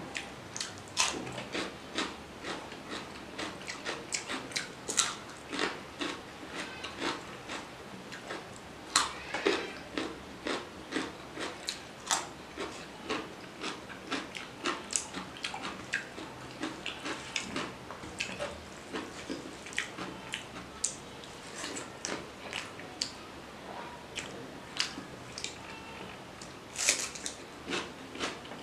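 Close-miked eating: a person biting and chewing rice, fish curry and raw cucumber, a steady run of short crunching and chewing sounds a few times a second, with louder crunches about a second in and near the end.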